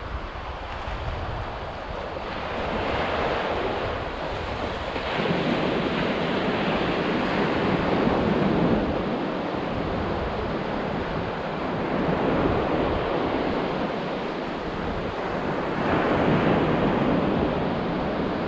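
Small waves breaking on the shore, the surf swelling and easing every few seconds, with wind buffeting the microphone.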